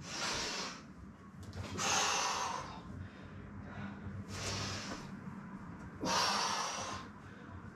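A woman breathing hard from exertion, four loud breaths about two seconds apart, in through the nose and out through the mouth.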